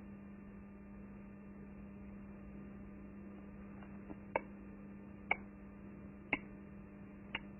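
Faint steady electrical hum, with a few faint ticks about a second apart in the second half.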